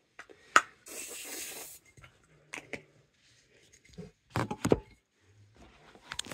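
Setting spray misted toward the face in one hiss lasting about a second, with a sharp click just before it and a few knocks and clicks afterwards.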